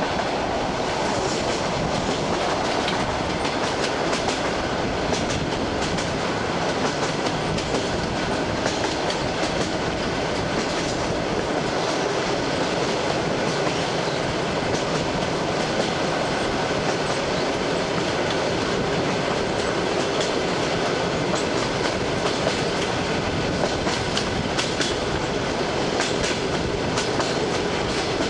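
ED9M electric multiple unit running, heard from inside the carriage: a steady rush of running noise with the wheels clicking over the rail joints.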